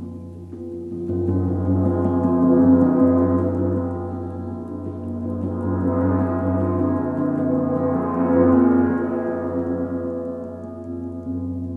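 Small hand-held gong played close to a reclining listener's head in a gong shower: many overlapping steady tones ring together, swelling up, easing off, then swelling again before fading.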